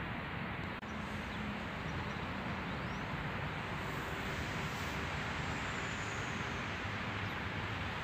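Steady outdoor background noise: an even rushing hiss with no distinct events. It cuts out for an instant about a second in.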